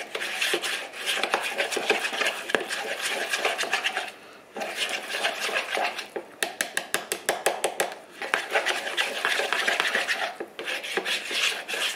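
Wire whisk beating flour and cold water in a plastic bowl, a rapid scraping and clicking against the bowl's sides, mixing a lump-free flour paste for thickening gravy. The whisking stops briefly twice, about four seconds in and about ten seconds in.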